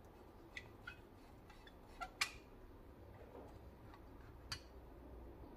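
Five or so faint, sharp metallic clicks and taps, the loudest a little over two seconds in: a screwdriver and small Edelbrock carburetor parts being handled while the needle seats are snugged down a quarter turn.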